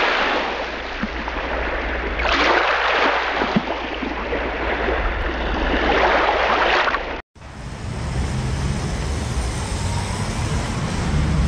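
Steady rushing of a fast-flowing river. The sound drops out abruptly for a moment about seven seconds in, then returns with more low rumble.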